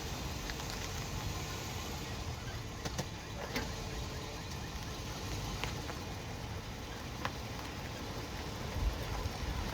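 2007 Lexus GX470 with steady vehicle running noise and a few short, sharp squeaks from the front end, spaced irregularly. The squeak persists even with both front wheel bearings and hubs newly replaced.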